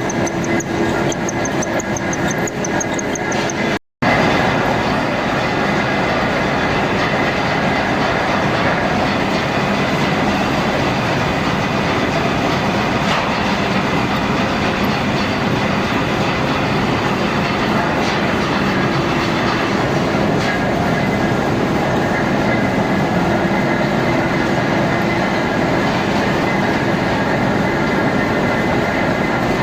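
Machine tool running while cutting a shaft: a steady, dense mechanical clatter with a faint whine. It breaks off for an instant about four seconds in, then carries on.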